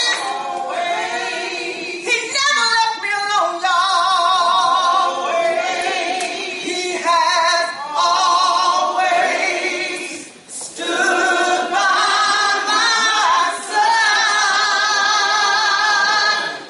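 A woman singing unaccompanied, holding long notes with a wide vibrato. She breaks off briefly about ten seconds in.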